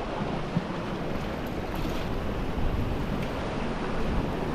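Ocean surf washing against a lava-rock shoreline: a steady rushing noise.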